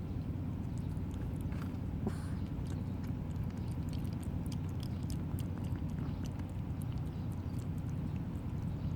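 Kittens eating, with many small wet clicks of chewing and licking over a steady low hum.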